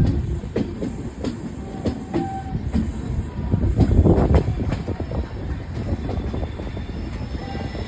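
Indian Railways express train coaches rolling along the track, the wheels clattering over rail joints over a steady low rumble, loudest about four seconds in.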